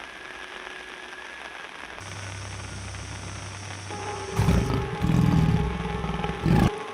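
Tiger growls in three low, rough bursts over a steady hum and held tone, about four and a half seconds in.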